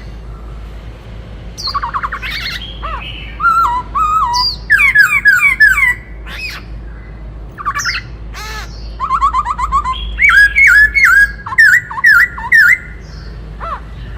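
Black-throated laughingthrush singing: loud whistled phrases of repeated, sweeping notes, in several bursts with short pauses between them.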